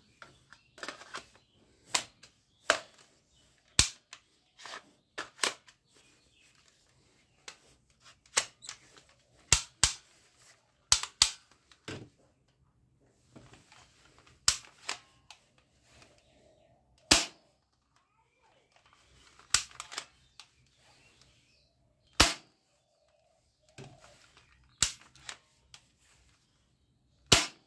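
Sharp plastic clicks and clacks at irregular intervals as a plastic toy rifle is handled: its magazine pushed in and parts on the receiver snapped back and forth.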